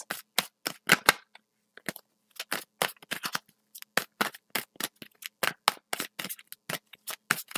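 A deck of tarot cards being shuffled by hand: a run of short, sharp card slaps and clicks, several a second, with a brief pause a little after a second in.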